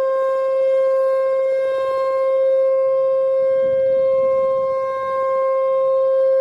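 Whelen Vortex R4 tornado warning siren sounding a steady alert tone, one unbroken pitch that swells and fades slightly as the siren head rotates. The uploader thinks its speaker drivers need replacing. A gust of wind hits the microphone about midway.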